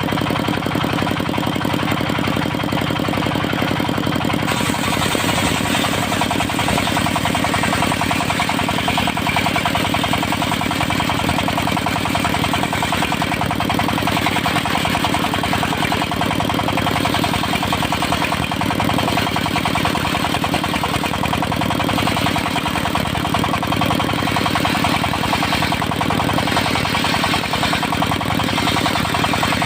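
Engine of a portable circular sawmill running steadily. About four and a half seconds in, a brighter, higher-pitched noise joins it and carries on.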